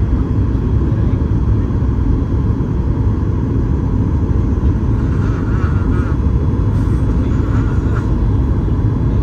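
Cabin noise inside a Boeing 737 MAX 8-200 on approach: its CFM LEAP-1B engines and the airflow make a constant low rumble, steady in level throughout.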